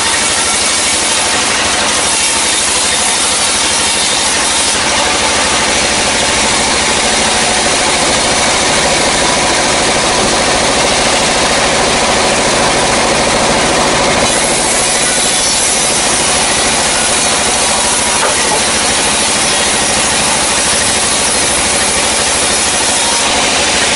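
Sawmill band saw running and cutting through a dry, weathered log: a loud, steady noise of the blade in the wood with the machine running under it.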